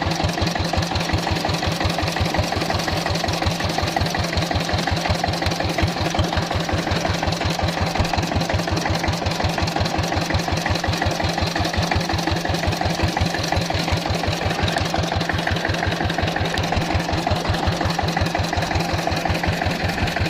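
Klotok boat's engine running steadily, with an even, rapid beat of several pulses a second.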